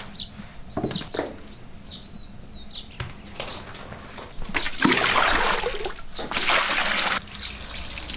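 Water sloshing and pouring as a bamboo basket of freshly boiled rice noodles is plunged into a water trough and lifted out to drain: the noodles are being rinsed. The water comes in two loud rushes a little past the middle, after a few bird chirps.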